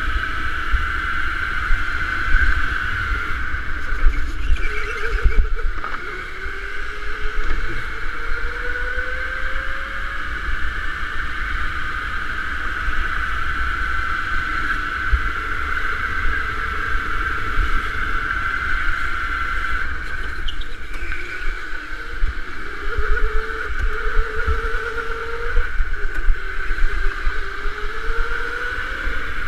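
Electric go-kart motor whining from an onboard camera, its pitch drifting up and down with speed through the corners, over a rough low rumble on the microphone.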